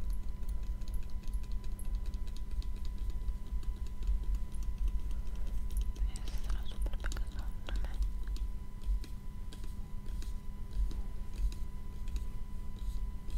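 Rapid, light fingernail tapping and clicking close to the microphone, in quick uneven flurries, busiest around the middle. Under it run a steady low electrical hum and a thin constant whine, noise from a failing microphone.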